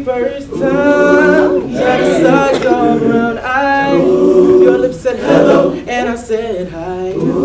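Male a cappella group singing in close harmony, sustained chords changing every second or so, with no instruments.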